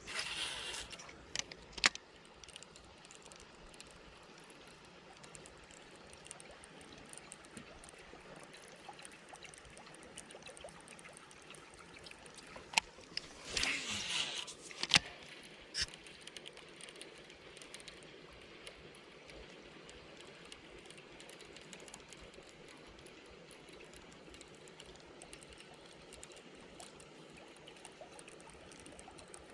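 Creek water trickling steadily. Two short rushing noises, one at the start and one around halfway, each come with a few sharp clicks.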